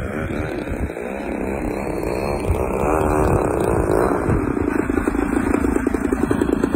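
Radio-controlled model airplane's propeller motor buzzing as the plane comes in low and touches down, then a steadier low hum with a rapid pulse as it rolls along the asphalt. Wind rumbles on the microphone underneath.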